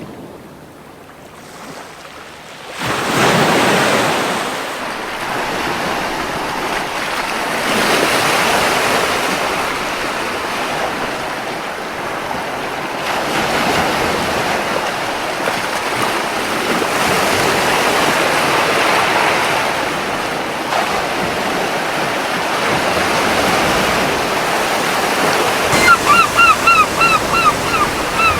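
Surf washing onto a beach in repeated surges, the first big wave coming in about three seconds in. Near the end a seagull gives a quick series of about seven short, falling calls.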